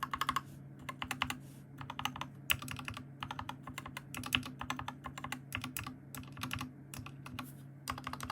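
Typing on an Epomaker SK61s 60% mechanical keyboard fitted with lubed Gateron Clear optical switches: quick runs of keystroke clacks with short pauses between them.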